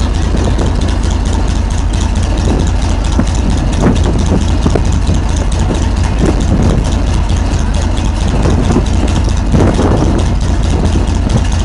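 Tiger I tank's Maybach V12 petrol engine running steadily at idle.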